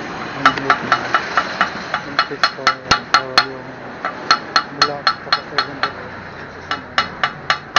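Metal tools and engine parts clicking and clinking against a disassembled motorcycle engine's crankcase: sharp, ringing metallic taps at uneven spacing, several a second.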